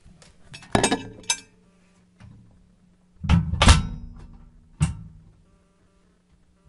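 Microwave oven door thunking shut and the oven being handled, a few sharp knocks with the heaviest about halfway through, heard from inside the oven cavity, over a steady low hum.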